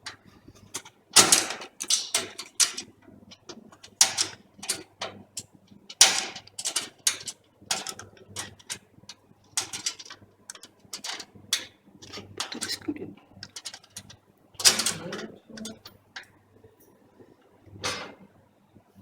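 Screwdriver driving screws into a motherboard in a metal PC case: irregular metallic clicks, scrapes and rattles as the screws are worked in with difficulty, with a few louder knocks about a second in, around six seconds and near fifteen seconds.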